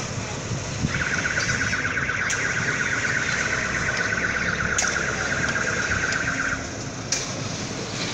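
Street work with steady background noise and a few sharp knocks of hand tools on concrete curb pieces. A high, rasping buzz starts about a second in and stops suddenly near the end, the loudest sound, its source unclear.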